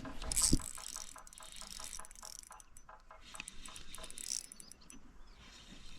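Ultralight spinning reel clicking in a fast, even ratchet-like run that fades out after about three seconds.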